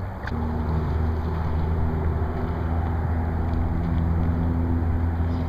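An engine running steadily with a low, even hum, which starts just after a click a fraction of a second in.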